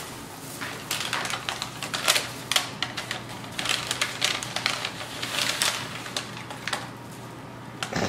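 Brown paper takeout bag rustling and crinkling as hands dig around inside it, an irregular run of crackles.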